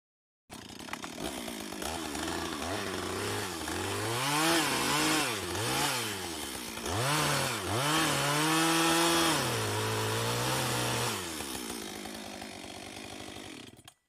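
Two-stroke petrol chainsaw cutting into wood. Its engine pitch swoops up and sags several times as the chain bites under load, then holds high and steady for a couple of seconds. It eases off lower and steadier near the end and cuts off suddenly.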